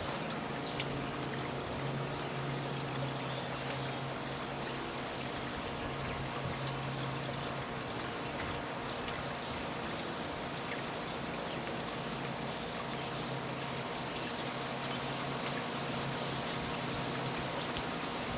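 Steady trickle and splash of water from a garden fountain, with a low steady hum over it for the first half.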